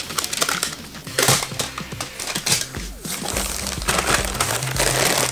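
Plastic bags of LEGO pieces crinkling and rustling as they are handled and pulled from a cardboard box, in several separate bursts.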